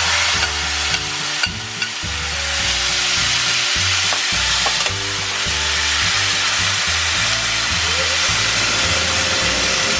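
Sliced mushrooms sizzling in melted butter in a stainless steel pan, stirred with a metal spatula; a steady frying hiss with a few light scrapes of the spatula.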